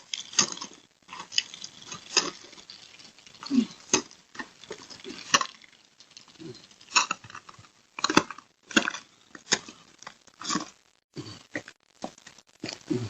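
Irregular crunching footsteps, scuffs and knocks on ice-glazed ground, with a few sharper cracks among them.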